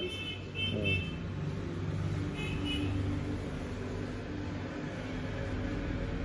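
Steady low mechanical hum, with short high-pitched beeping tones near the start and again about two and a half seconds in.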